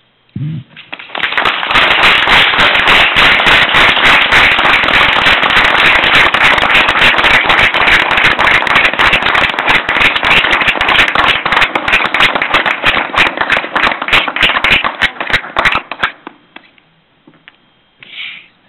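Loud applause from a small group, beginning about a second in and dying away about sixteen seconds in.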